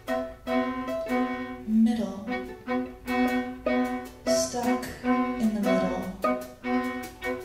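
String quartet of two violins, viola and cello playing a steady pulse of short repeated bowed notes, with lower notes sliding downward twice.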